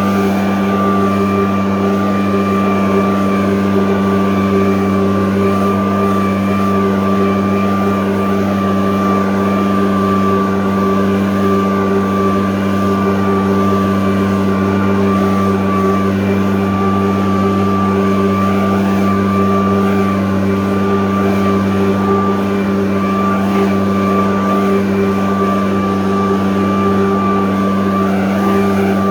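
85.5 cc engine blower running steadily, its engine and fan making a constant hum with a thin steady whine above it, without revving up or down.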